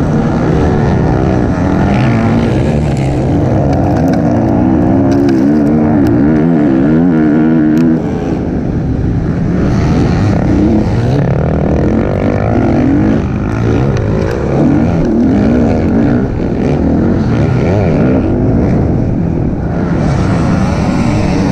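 Motocross dirt bike engine heard up close from the rider's onboard camera, its pitch rising and falling continuously as the throttle is worked through corners and straights.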